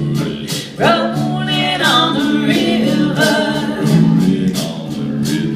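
A live band playing with singing voices over held chords and a steady beat.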